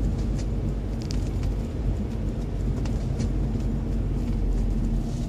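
Steady low rumble of a car's engine and tyres on a wet road, heard from inside the cabin at low speed, with a few faint clicks.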